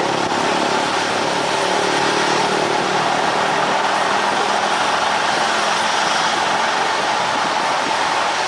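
Military helicopter running on the ground close by, its turbine engines and turning main rotor making a steady, loud noise.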